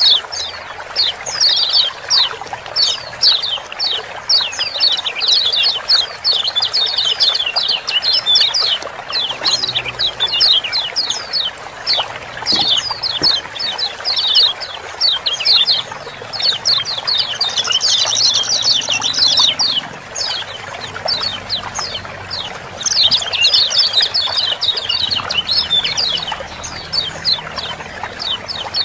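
Kecial kuning white-eyes giving a very busy run of 'ciak-ciak' chirps, many short falling notes in fast volleys that barely pause, over a steady hiss of running water.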